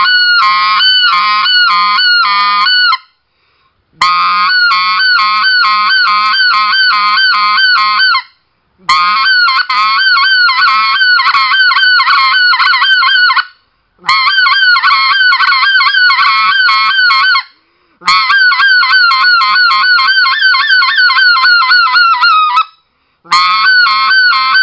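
RedBone specklebelly goose call blown by hand in six runs of rapid, rhythmic yodeling notes, each run a few seconds long with short breaks between. The call goes from voiced air, with a low growl under the first runs, into clear air in the later runs, with the hands kept in the same position.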